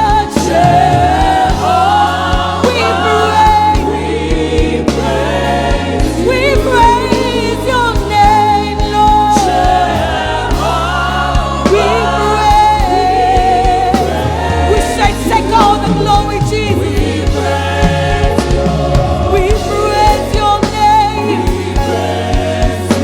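Live gospel worship music: voices singing with vibrato, joined by a choir, over a band with sustained low bass notes that change every second or two.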